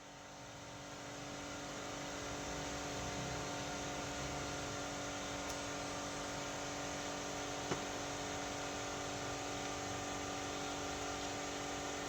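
A machine running steadily with a whirring hum made of several constant tones, building up over the first two seconds and then holding level. A single short click about three-quarters of the way through.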